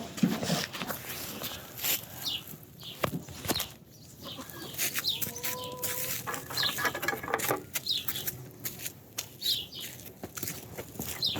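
Farm birds, chickens among them, chirping and flapping their wings amid rustling and knocking. Short high chirps come every second or two, and a longer held call sounds about five seconds in.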